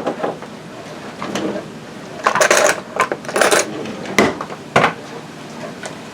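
Glass canning jars and metal lids or bands clinking and clattering: a couple of short rattling clatters in the middle, then two single sharp knocks.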